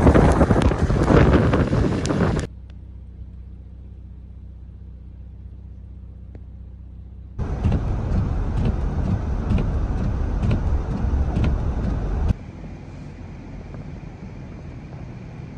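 Gusty winter-storm wind rushing over the microphone, broken up by edits: it cuts off suddenly about two seconds in to a steady low hum, a similar loud rush comes back about halfway through, and a softer steady hiss follows near the end.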